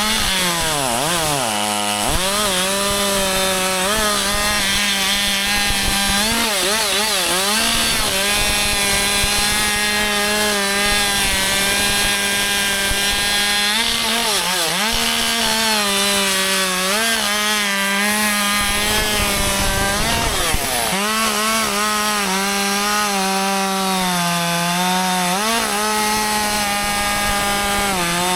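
Husqvarna 564 XP two-stroke chainsaw cutting wood at high revs. Its pitch sags and recovers as the chain loads up in the cut, dipping most deeply about fourteen and twenty-one seconds in.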